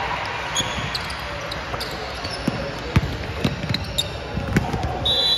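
Basketball game on an indoor court: a ball thumping on the floor several times at an uneven pace, with short high-pitched sneaker squeaks and one longer squeal near the end.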